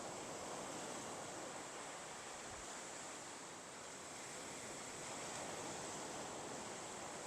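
Faint, steady wash of ocean surf and wind on a beach.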